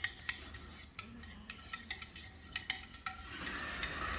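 Hand wire whisk beating a runny egg, milk and oil mixture in a bowl, clicking and clinking against the bowl's sides in quick, irregular strokes. A soft rustling noise comes in near the end.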